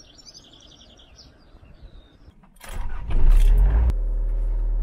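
Birds chirping faintly, then about two and a half seconds in a motorhome's engine is cranked and catches with a loud surge, settling into a steady idle about a second later.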